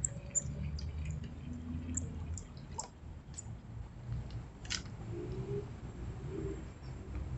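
Birds calling in the trees around the water: scattered short, high chirps, with a few short low notes near the middle and later, over a steady low rumble.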